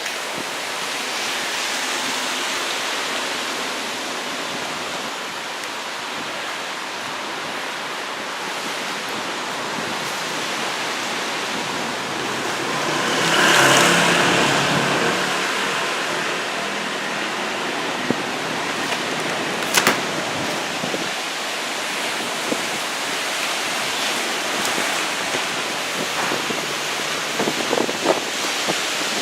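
Heavy, rough surf after a typhoon: waves breaking in a steady rush of noise, with wind. A bigger wave crashes about halfway through, and there are a few short knocks later on.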